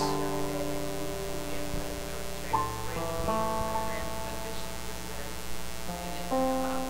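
Soft instrumental worship music: held chords on a keyboard or guitar, changing a few times.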